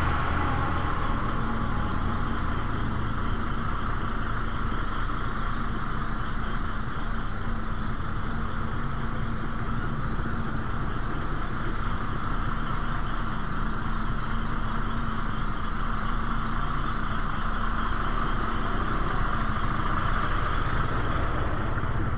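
Steady running noise of a motorcycle ridden close behind a bus: engine drone and road noise with a constant hum, and no sudden events.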